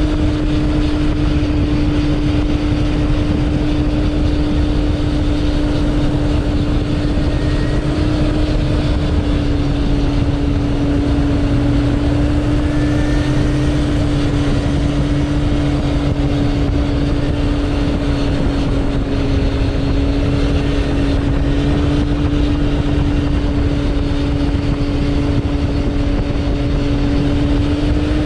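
Suzuki Bandit 1200's inline-four engine running at a steady cruising pace, heard from on board the bike. Its note holds nearly constant, with wind rush and road noise underneath.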